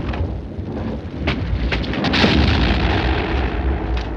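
Battle noise of shellfire: a heavy low rumble of explosions with a few sharp cracks, swelling to its loudest about two seconds in.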